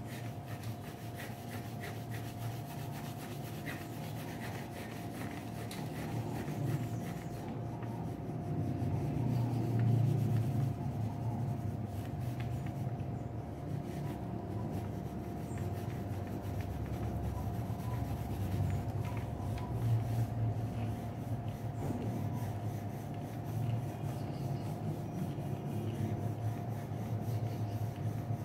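Graphite pencil shading on paper: continuous back-and-forth rubbing strokes as an area of a drawing is filled in.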